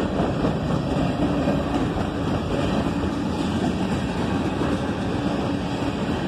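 Freight cars rolling past: a steady rumble and rattle of steel wheels on the rails as covered hopper cars and a centerbeam lumber car go by.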